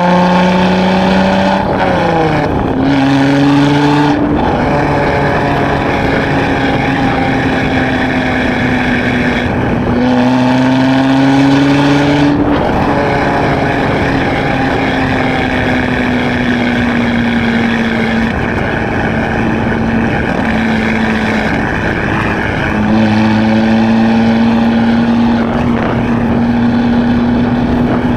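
2016 Chevrolet Camaro RS engine heard through a Borla ATAK axle-back exhaust while driving. Its note climbs in pitch under acceleration at the start, around ten seconds in and again near the end. It drops sharply about two seconds in, as at a gear change, and sinks slowly while easing off in between.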